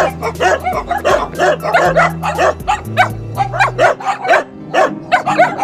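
Several dogs barking, a young dog close by among them, in a rapid run of short overlapping barks, several a second, with no pause.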